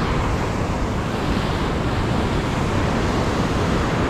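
Sea surf washing against rocks, a steady rush of noise with no break, with wind rumbling on the microphone.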